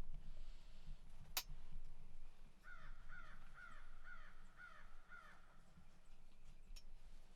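A crow cawing six times in an even series, about two caws a second, preceded by a single sharp click.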